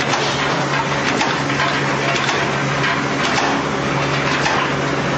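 Push-cap assembly machine running: a steady mechanical hum under a constant hiss, with frequent light clicks as the caps are fed and joined.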